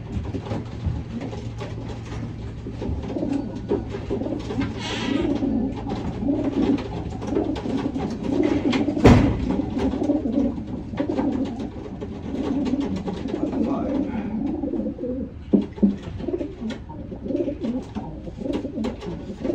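Racing pigeons cooing continuously in a loft, with scattered clicks. A brief rustle comes about five seconds in and a sharp knock just after nine seconds.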